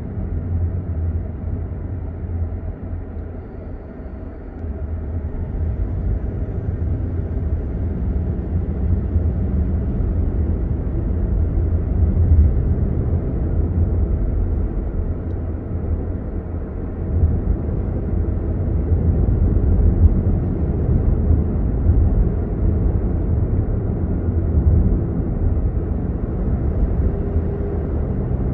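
Road and engine noise heard from inside a moving car's cabin: a steady low rumble, quieter for a moment about four seconds in and then building again.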